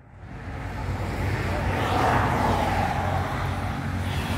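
A motor vehicle passing on the highway close by, its road noise swelling to loudest about two seconds in and then easing, over a low steady engine hum.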